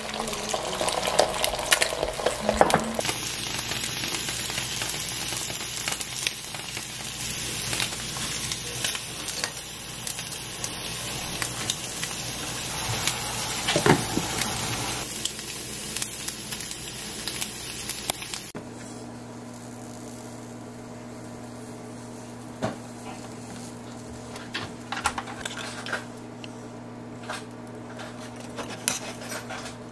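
Beaten egg sizzling as it fries in a nonstick pan, with a fork scraping and tapping against it. About two-thirds of the way through the sizzling cuts off suddenly, leaving a steady hum and a few light clicks of a utensil against a steel pot of bean sprouts.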